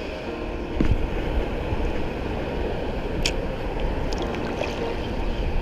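Steady wash of sea surf with wind rumbling on the microphone, broken by a couple of light clicks.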